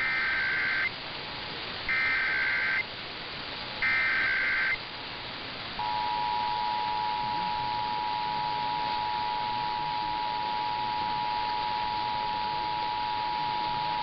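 Emergency Alert System test over AM radio. Three short bursts of warbling SAME header data tones come about a second apart. About six seconds in, the steady two-tone EAS attention signal starts and holds. This opens the nationwide emergency alert test, heard through AM reception hiss.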